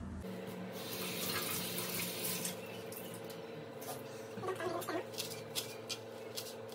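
A steady hiss with a faint hum, then a run of sharp knocks over the last couple of seconds as a knife starts chopping fresh parsley on a plastic cutting board.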